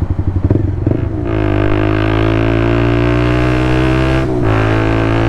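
Motorcycle engine under way: the low, pulsing beat of the first second gives way to a steady, even drone as the bike settles into cruising revs, with a brief dip in the sound about four seconds in.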